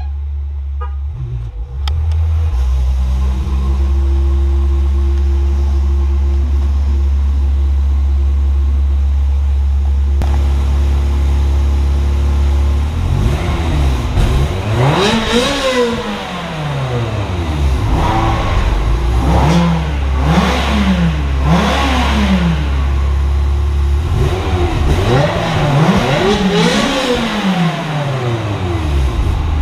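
Ferrari V8 with its stock exhaust idling steadily, then blipped several times from about halfway, the revs sweeping up and dropping back in quick runs, before settling back to idle near the end.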